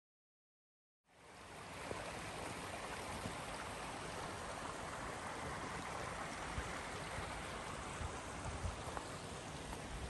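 Waterfall's water rushing steadily, fading in about a second in from silence.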